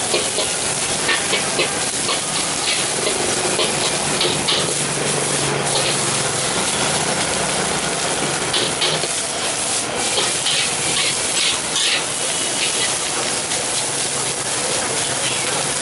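Fried rice sizzling in a hot wok as it is stir-fried with a long metal spatula, which scrapes and clinks against the pan now and then over the steady hiss.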